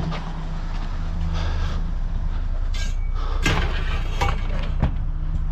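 A vehicle engine idling as a steady low hum, with a few sharp knocks and clatters about three to five seconds in.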